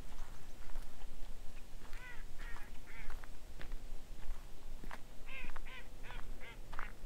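Water birds calling with short, arching calls, each rising and falling in pitch: about three some two seconds in, then a quicker run of about five near the end.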